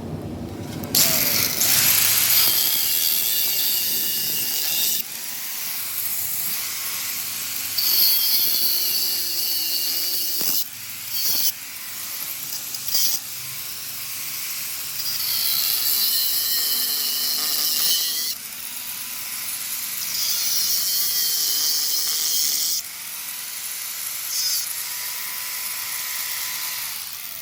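Ratchet wrench clicking in runs of a few seconds, with short pauses between, as bolts are worked loose on a washing machine motor.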